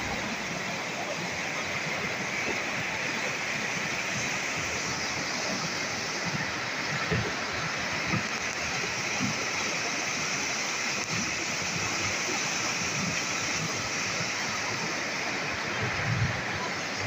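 Swollen, muddy river in flood rushing steadily past, a continuous loud wash of fast water.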